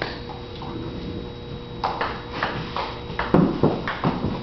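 Table tennis rally: the celluloid ball clicking off paddles and the table in a quick series of sharp knocks from about two seconds in, with one heavier thump about three and a half seconds in.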